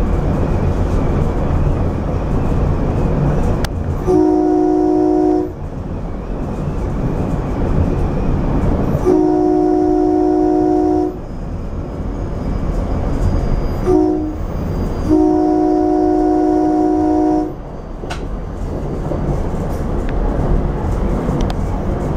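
Silverliner V electric railcar's Nathan K3LA multi-chime air horn sounding the grade-crossing signal, long, long, short, long, over the steady rumble and clatter of the train running along the track.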